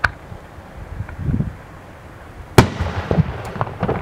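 Aerial fireworks: a sharp pop at the start and a low rumble about a second in, then a loud bang about two and a half seconds in as a shell bursts, followed by rolling echoes and smaller booms.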